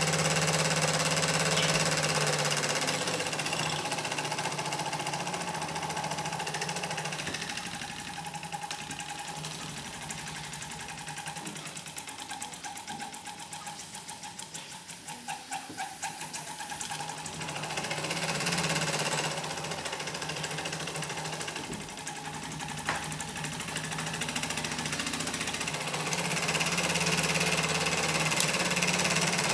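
Cyldon 13-2 toy steam engine running fast with a rapid mechanical clatter as it drives a small stepper-motor generator by a belt. It slows about halfway, so that single strokes can be heard, then picks up speed again. It runs unevenly because its timing is slightly out.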